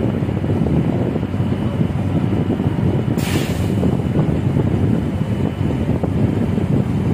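Wind buffeting the microphone in a steady low rumble, with a brief hiss about three seconds in.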